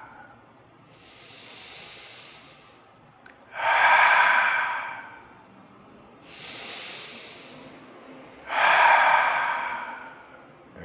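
A man doing ujjayi ocean breath: two rounds of a soft inhale followed by a louder, longer breathy exhale through a narrowed throat that sounds like the sea.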